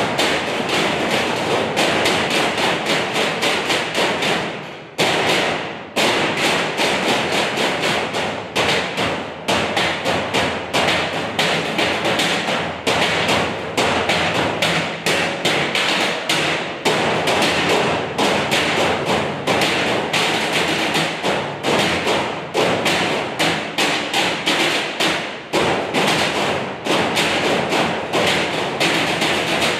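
A row of metal trash cans beaten with drumsticks in a fast, steady percussion rhythm. There is a short break about five seconds in, ended by a loud hit.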